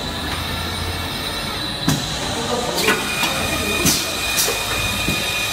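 Automatic linear piston filling machine running on an engine-oil bottling line: a steady mechanical noise with a steady high whine, broken several times by short, sharp hisses from its air-driven filling heads.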